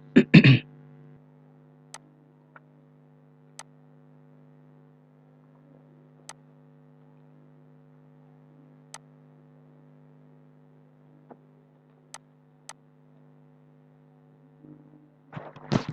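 Steady electrical mains hum with about eight sharp single clicks spaced irregularly, the clicks of a computer mouse.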